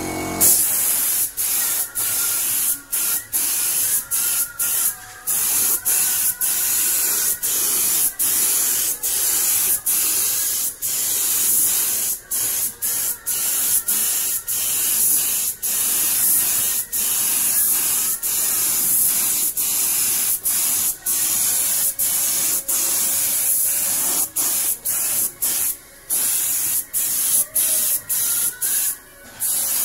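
Gravity-feed compressed-air paint spray gun hissing as it sprays paint onto a steel frame. The hiss breaks off for a moment many times throughout.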